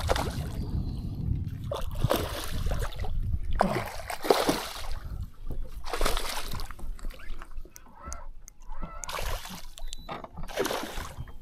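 A hooked bass thrashing and splashing at the water's surface beside the boat, in repeated separate splashes every second or two.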